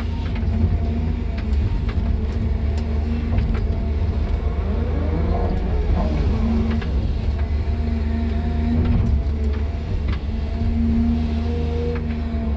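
Excavator's diesel engine running steadily, heard from inside the cab, with a whine that rises and falls about five to six seconds in and a few faint ticks.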